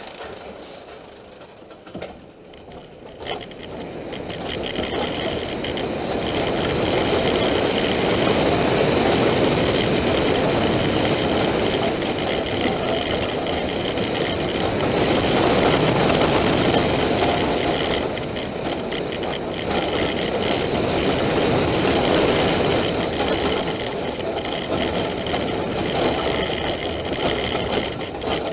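Roller coaster train running along its track: wheel and track noise that builds over the first few seconds, then stays loud and steady with slow swells.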